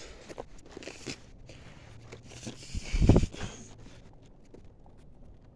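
Footsteps crunching and crackling through twigs and brush, with one loud low thump about three seconds in.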